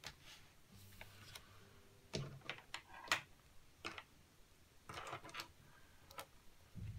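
Hands handling a paper notebook on a wooden desk: scattered light taps and paper rustles, with a soft low thump near the end.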